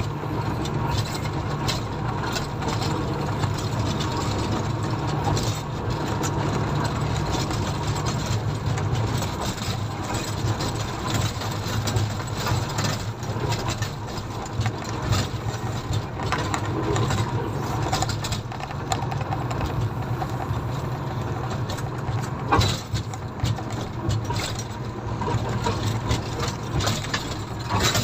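Komatsu motor grader's diesel engine running steadily with a low hum, with scattered knocks and rattles and one sharper knock about two-thirds of the way through.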